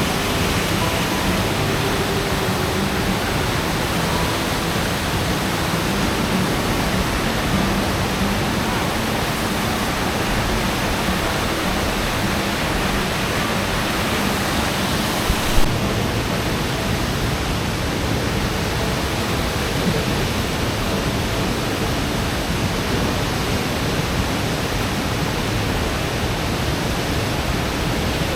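Steady rushing of the Pistyll Rhaeadr waterfall, an even roar of falling water. There is a brief knock about fifteen seconds in, after which the sound is slightly duller in the highs.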